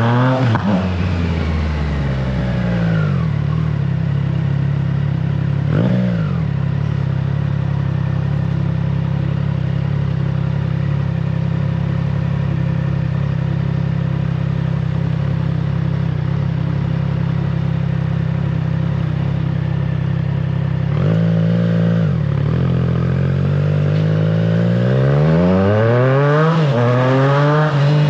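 Triumph Trident 660's three-cylinder engine through an aftermarket FireTong exhaust. The revs drop at the start and the engine is blipped briefly about six seconds in. It then runs at a steady pitch for a long stretch before revving up and down again and climbing in revs near the end.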